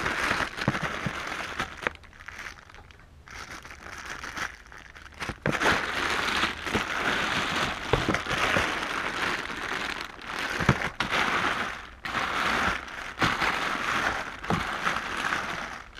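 Zip-top plastic bags of action figures crinkling and rustling as a hand rummages through them in a plastic storage bin, with scattered clicks and knocks. It is quieter for a few seconds near the start and busier after that.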